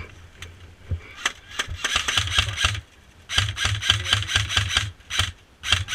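Airsoft gun firing in rapid full-auto bursts: a few single shots about a second in, then three strings of quick shots, the longest in the middle.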